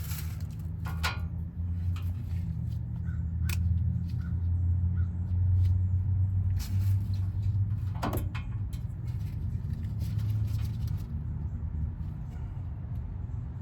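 Steady low engine-like hum, a little stronger midway, with a few sharp clicks and knocks about 1, 3.5 and 8 seconds in.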